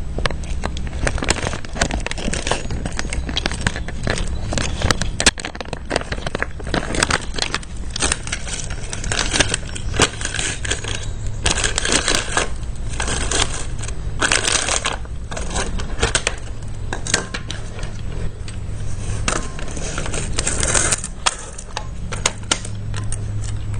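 Handling noise: a plastic bag crinkling and rustling, with many small clicks and knocks, as a cordless tool battery pack is taken out of its bag and handled.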